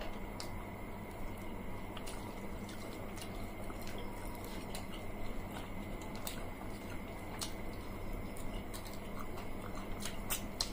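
Eating by hand: soft wet chewing and squishing of water-soaked rice (poita bhat) and fried fish, with scattered small clicks over a steady faint hum.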